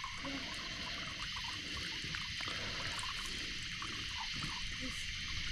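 Steady night chorus of insects and frogs, with faint dripping and trickling of water.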